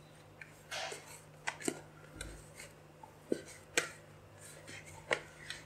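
Risen yeast dough being knocked back and kneaded by hand in a plastic bowl: quiet, irregular taps and clicks as the dough and fingers press against the bowl.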